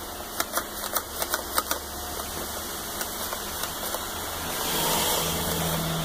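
Plastic Super Soaker water gun being pumped and fired: quick, irregular plastic clicks and rattles for the first couple of seconds, then a hiss of boiling water spraying out that swells to its loudest about five seconds in. A steady low engine hum runs underneath.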